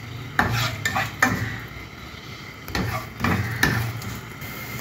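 A spatula stirring and scraping whole spices (cumin, coriander seeds, ajwain, curry leaves) around a non-stick frying pan of hot oil, in two bursts of short scraping strokes, over a low sizzle of the oil as the spices sauté.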